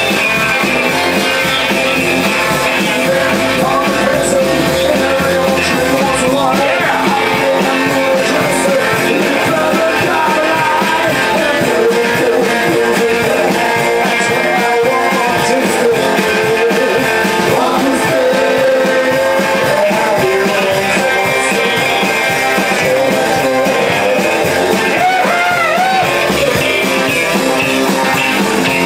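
Live rock and roll band playing: electric guitars, bass and a drum kit, with a man singing into the microphone at times.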